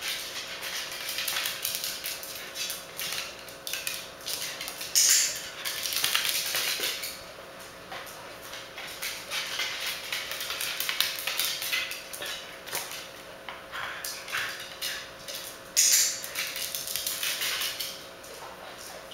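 A training clicker clicking sharply twice, about five seconds in and again near the end, over a steady patter of small taps and clatter on a tile floor from a dog moving about during clicker shaping.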